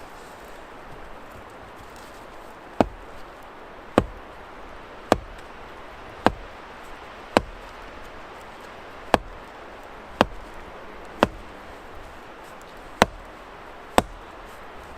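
An axe struck again and again into a knotty log to split it: about ten sharp wooden blows roughly a second apart, starting about three seconds in.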